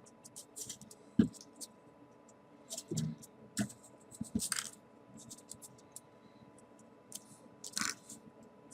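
Small folded-paper 3D origami pieces being handled and slotted into place on the model: scattered light paper clicks and rustles. The sharpest tap comes about a second in, with a cluster of taps around the middle and one more near the end.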